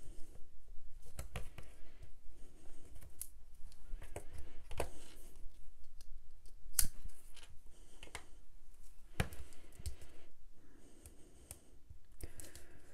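Scissors snipping strong double-sided tape while the tape is pulled from its roll and pressed onto paper card: scattered sharp clicks with soft rustling between them, the loudest click a little past halfway.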